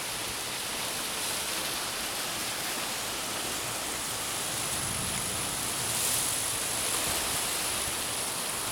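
Heavy monsoon rain falling in a steady hiss, swelling a little about six seconds in.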